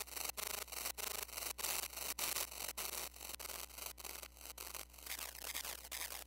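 Modular synthesizer putting out a pulsing noisy hiss, cut off in short gaps about three times a second. About five seconds in, the hiss turns into a wash of quick falling pitch sweeps.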